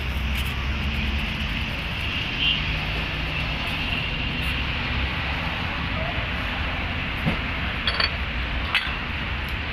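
Steady hissing noise with a low rumble underneath, and a few light metal clicks about seven to nine seconds in as a steel cylinder liner is handled and set into an engine block bore.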